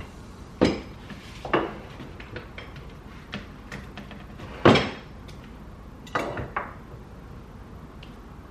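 Kitchen items being set down and shifted on a countertop, including a wooden knife block and its knives: a run of knocks and clatters with lighter clicks between, the loudest about halfway through.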